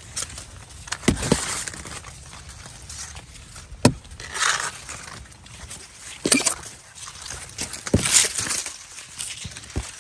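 Dry and green corn leaves rustling and scraping in irregular swishes as someone walks through a row of standing corn, pushing past the plants, with a few sharp knocks.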